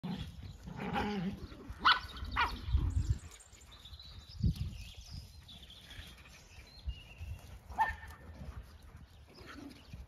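Several dogs playing on grass, giving short barks in a cluster during the first few seconds and once more near the end. Birds sing faintly in between.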